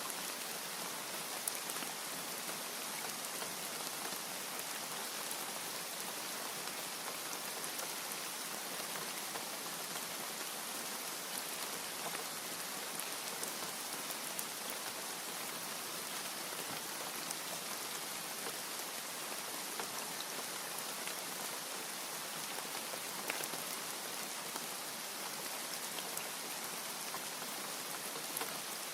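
Steady rain falling, an even hiss with scattered sharper drop ticks and no thunder.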